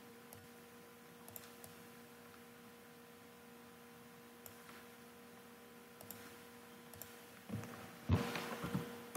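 Steady electrical hum from the computer with scattered faint computer mouse clicks, then a cluster of louder knocks and clicks near the end as the keyboard and mouse are worked to save the file.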